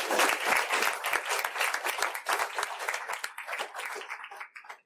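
Audience applauding, the clapping thinning out and fading away near the end.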